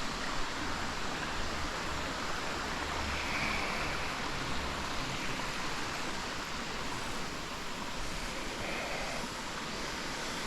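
Steady rush of falling and flowing water from a waterfall cascading into rock pools.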